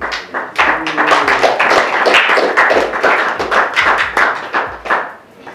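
Audience clapping: a dense run of claps that dies away near the end.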